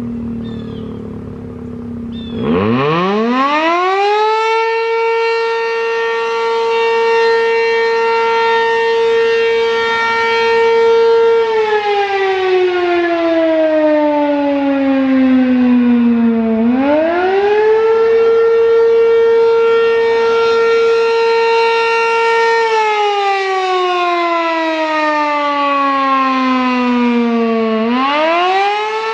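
American Signal RM-127 three-phase, single-tone mechanical siren winding up sharply from low pitch about two seconds in, then wailing: it holds a steady tone for several seconds, slides down in pitch, and winds back up, twice. This rise-and-fall is the attack signal of a full alert-and-attack test.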